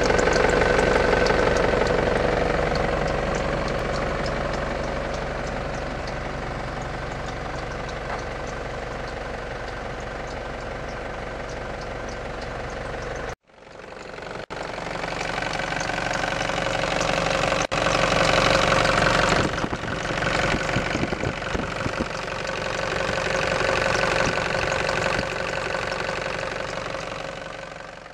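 Nissan E50 Elgrand diesel engine running with a repetitive ticking, 'pitch-pitch' noise, which a Nissan dealer traced to a worn crankshaft pulley whose rubber packing between the pulley halves has deteriorated. The sound cuts out abruptly about halfway through, then resumes, rising and falling in level.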